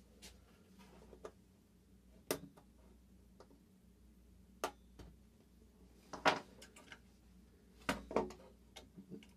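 Light, scattered clicks and knocks of a small plastic switch case and its circuit board being handled and worked loose by hand, with small pliers laid down on a table. The loudest clicks come in a cluster about six seconds in and again about eight seconds in.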